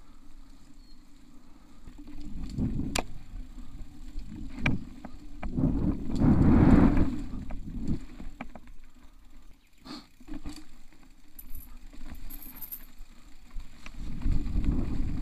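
Mountain bike rolling fast down a dirt forest trail, heard from a camera on the rider: rumbling tyre and trail noise with sharp knocks and rattles as the bike hits bumps, loudest about six to seven seconds in.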